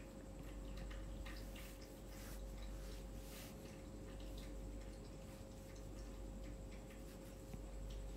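Quiet room tone with a steady electrical hum and scattered faint light ticks and clicks.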